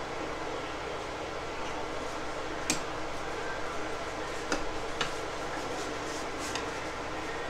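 A metal spoon stirring a thick marshmallow and cottage-cheese salad in a ceramic bowl, clinking sharply against the bowl about four times, over a steady background hiss.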